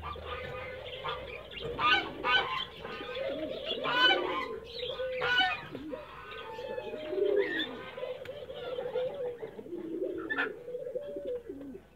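A flock of domestic pigeons cooing: low, wavering coos repeated over and over from several birds, with short, sharper sounds mixed in.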